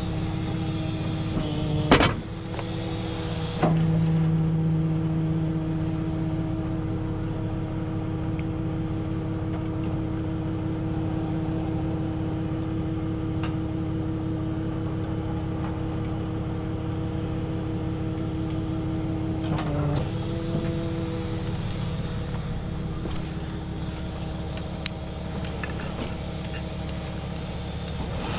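Tow truck engine running steadily with a constant hum. There is a sharp clank about two seconds in and another near four seconds, then a louder low hum for a couple of seconds, and another knock about twenty seconds in.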